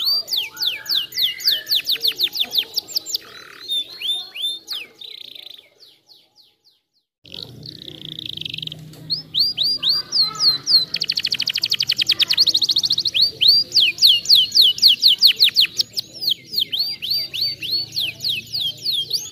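Domestic canary singing: long trills of rapid, repeated down-slurred notes, broken by a brief silence about six seconds in, then resuming with a very fast, buzzing roll and further trills.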